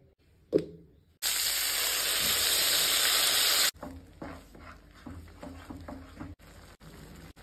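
A loud steady hiss lasting about two and a half seconds, which cuts off abruptly. After it come soft scraping and squelching as a spatula stirs thick tomato puree in a nonstick pan.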